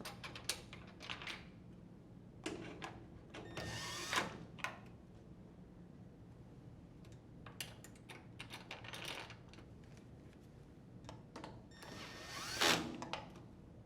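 Drill driver with a 1/4-inch bit running in two short bursts, about three seconds in and again near the end, driving screws back into a washer panel. Small handling clicks come between the bursts.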